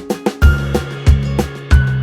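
Background music with a steady, upbeat drum beat and bass line.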